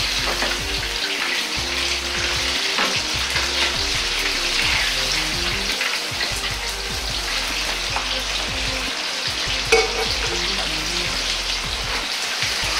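Chicken karaage deep-frying in hot oil in a wok during the second fry: a steady sizzling and bubbling as the pieces are lifted out in a perforated strainer to drip and lowered back in. A sharp metal clink about ten seconds in.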